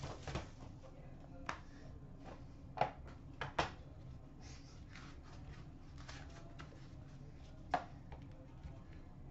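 Faint handling of a metal trading-card tin: plastic wrap pulled off, then the tin lid and inner box lifted away, giving about five light clicks and taps spread out over a low steady hum.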